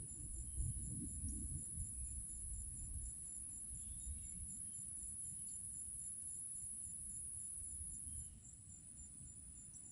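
Insects singing a steady high-pitched drone, over a low, uneven rumble.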